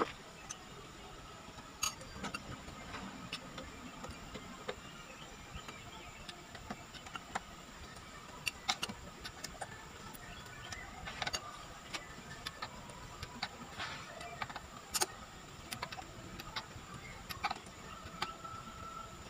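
Socket wrench working the wheel nuts of a car's rear wheel: scattered sharp metallic clicks and clinks, bunched more thickly in the middle stretch, as the nuts are run down and tightened.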